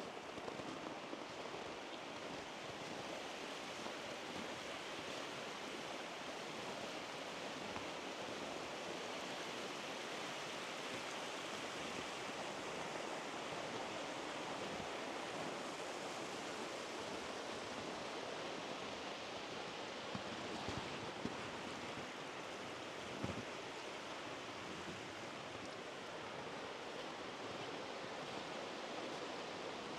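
Steady rushing of a mountain stream, an even noise with no rhythm. Two faint knocks come near the end.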